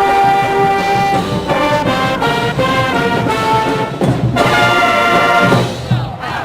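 Marching band brass (trumpets and trombones) playing a tune in sustained and moving notes, ending on a loud held chord that cuts off near the end.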